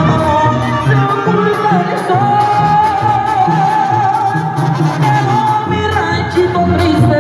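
Latin American song: a singer holds a long wavering note over a band with a bouncing bass line.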